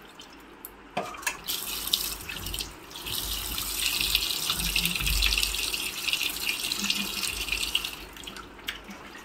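Water running from a tap into a sink for about six seconds, starting with a few knocks about a second in and stopping near the end.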